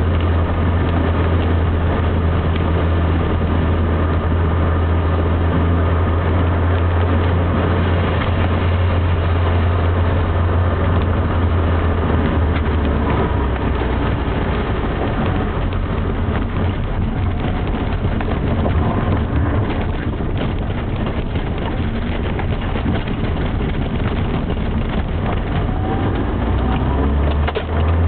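A Mini's engine running under way, heard from inside the cabin, with a steady low drone over constant tyre noise from a wet road. The drone weakens about halfway through and comes back strongly near the end, just after a brief dip in level.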